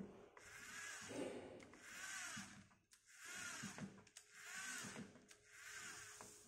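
LEGO Mindstorms NXT servo motors whirring through their gears in a string of short runs of about a second each, the pitch rising and falling within each run, as the robot arm lifts and turns.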